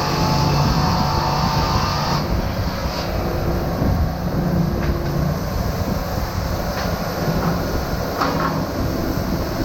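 Sawmill running loud and steady, its blade cutting through wood with a high hiss that stops about two seconds in. The machinery then keeps running, with a few light knocks.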